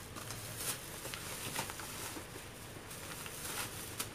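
Plastic grocery bags rustling and being set down in a car trunk, with a series of short, irregular rustles and soft knocks over a steady low hum.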